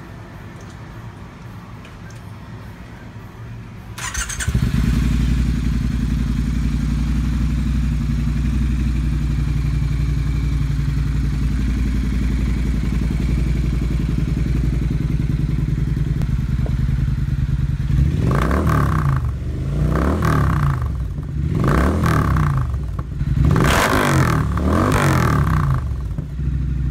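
Triumph Thruxton R's 1200 cc parallel-twin engine, run without its catalytic converter, starting up about four seconds in and idling steadily. Near the end it is blipped about five times, each rev rising and falling back to idle.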